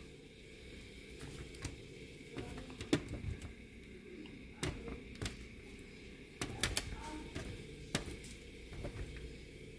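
Scattered light clicks and taps of tongs setting chicken wings into a styrofoam takeout container, a dozen or so irregular knocks over a quiet room.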